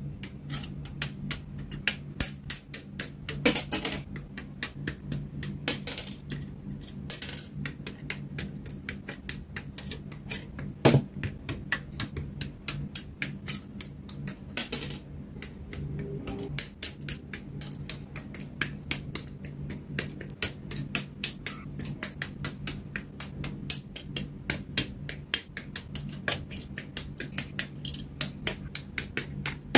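Hobby side cutters snipping plastic model-kit parts off the runner: a rapid, irregular string of sharp clicks and snaps, with a few louder cuts standing out.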